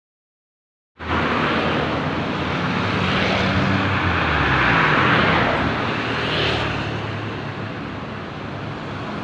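A loud vehicle engine with a heavy rushing noise starts about a second in after silence, grows to its loudest near the middle and then eases off a little.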